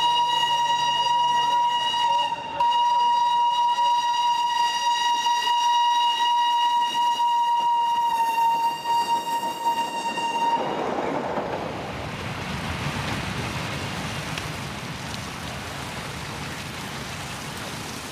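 Steam locomotive whistle held as one long, steady, high note, with a short break about two and a half seconds in, stopping after about ten seconds. After it comes the noisy rush of the moving train, slowly fading.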